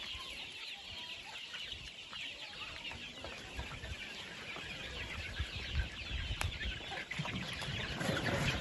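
A large flock of chickens calling all at once: a dense, continuous chorus of many short, high-pitched cheeps and clucks.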